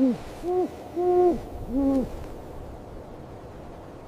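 Snowy owl hooting: four short hoots about half a second apart, each rising and then falling in pitch.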